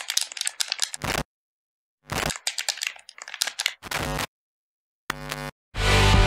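Typewriter-style keystroke clicks in two quick runs of about a second each, a short pitched sound shortly after, then rock music with guitar starting just before the end.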